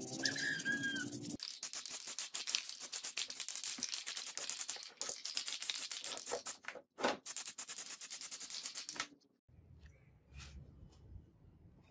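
Aerosol can of clear paint being shaken, its mixing ball rattling quickly for several seconds before it stops.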